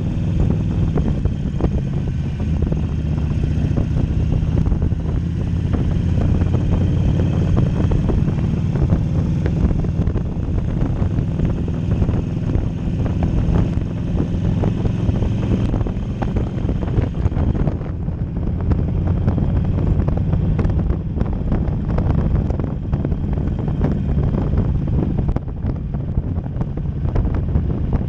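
Harley-Davidson Sportster 1200 Custom's air-cooled V-twin running steadily under way at city speed, with wind rushing over the microphone.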